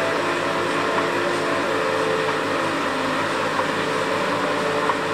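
Steady mechanical hum and hiss, with a faint tick repeating about every second and a half.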